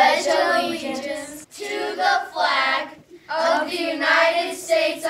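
A group of children reciting the Pledge of Allegiance together in unison, phrase by phrase with short pauses between phrases.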